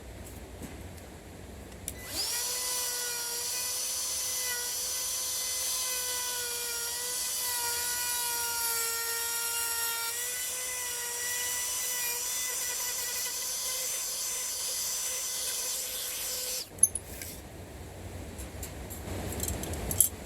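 Wood router running at a steady pitch as it cuts a hinge mortise into the edge of a wooden slab door through a hinge template. It starts about two seconds in, runs for roughly fifteen seconds and stops with a sharp knock, followed by quieter handling.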